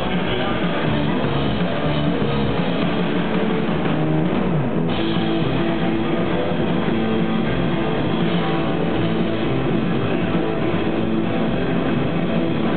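Live rock'n'roll band playing loud: electric guitar, upright double bass and drum kit in a driving beat.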